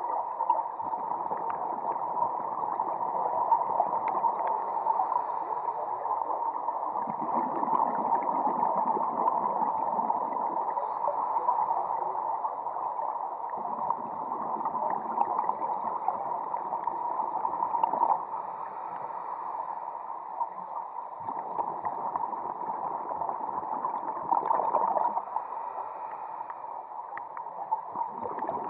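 Muffled underwater noise heard through a waterproof camera housing, with louder bursts of bubbling every several seconds from scuba divers' exhaled air rising.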